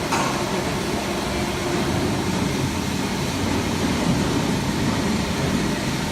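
W12 CNC plate rolling machine running with a steady mechanical hum.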